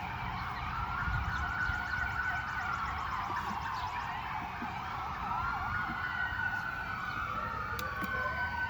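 Several emergency-vehicle sirens wailing at once, each slowly rising and falling in pitch over a few seconds, their wails overlapping.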